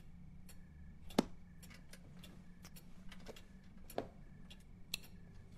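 Quiet room tone with scattered soft ticks and clicks at uneven spacing, the sharpest about a second in and another about four seconds in, over a faint steady hum.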